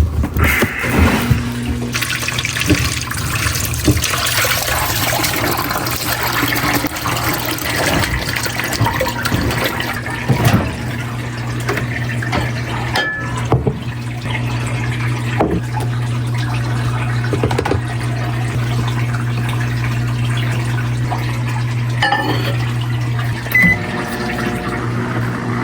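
Water running and filling, over a steady low hum, with occasional clinks and knocks.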